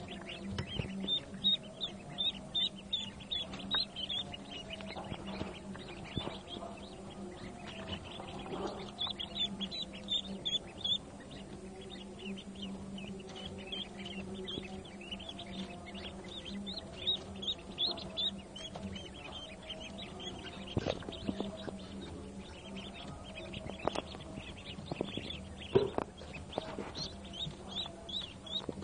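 Newly hatched Pekin and hybrid ducklings peeping continuously in a dense chorus of many high chirps, over a steady low hum, with a few soft knocks.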